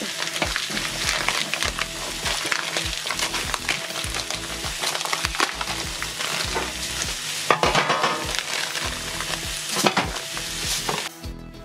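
Pork sausages sizzling and spitting in a hot cast-iron skillet, a steady crackle of frying as they brown. A brief crinkle of plastic packaging and foil rises over it a little after halfway. The sizzle cuts off suddenly near the end.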